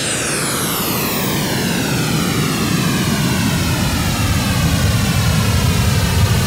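Synthesized aircraft sound from the KORG iMS-20 synthesizer app: a rushing noise with a slow, falling sweep in its tone, gradually growing louder, like an aircraft passing overhead.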